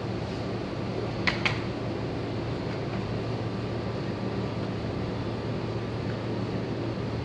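A steady machine hum in the room, with two sharp clicks close together about a second and a half in as stroller parts are handled.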